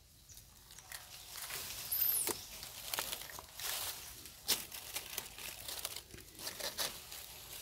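Crackling, crinkling rustle with a few sharp clicks, and a short high chirp about two seconds in.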